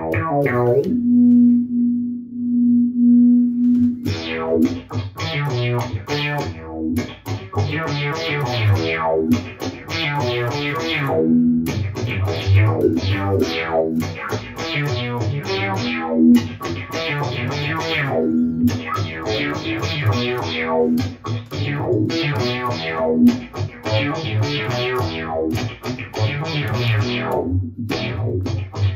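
Electric guitar played through a Digitech Dirty Robot synth pedal, giving a synth-like tone. A single low note is held for the first few seconds, then a continuous run of notes follows, each note's brightness sweeping down like a closing filter.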